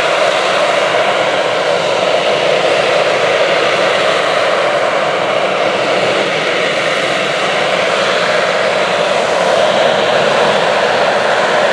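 Sea Harrier's Rolls-Royce Pegasus vectored-thrust turbofan running at high power as the jet hovers, a loud, steady jet noise with a strong mid-pitched rumble.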